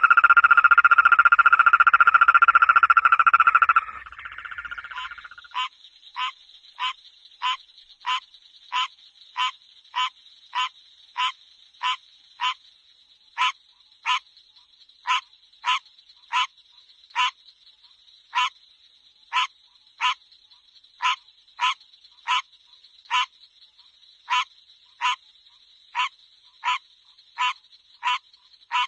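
Frogs calling: a loud, long held call for the first four seconds, then a steady series of short, evenly spaced calls, about one and a half a second, over a faint steady high-pitched hum.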